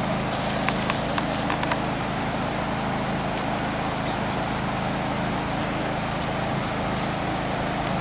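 Steady low mechanical hum with background noise and a few faint clicks in the first two seconds.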